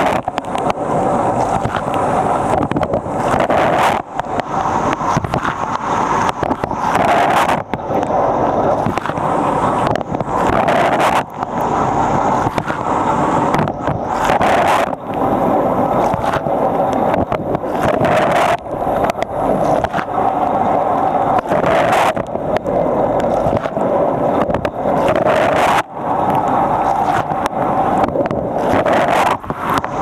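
Fisher & Paykel Nautilus dishwasher mid-wash, heard from inside the tub: a dense rush of water jets spraying across the racks and pelting the camera, over the running wash pump. The spray swells and eases every three to four seconds.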